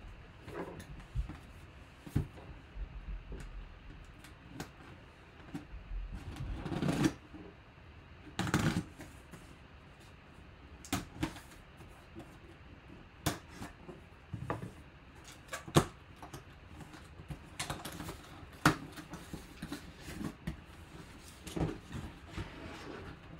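Cardboard box being handled and opened: scattered taps, scrapes and sharp clicks as it is turned over and its taped flaps are worked open. There are a couple of longer rustling tears of cardboard and tape about seven and eight and a half seconds in.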